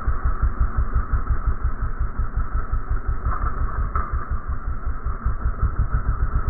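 Dirt bike engine running at steady low revs on a trail climb, a deep, rapid even pulse with tyre and wind noise above it.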